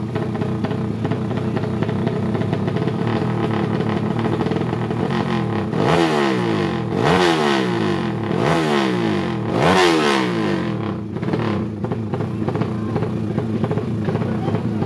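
A 300cc drag-race motorcycle engine running steadily at idle, revved four times in quick succession in the middle, each rev rising sharply and dropping back before it settles to idle again.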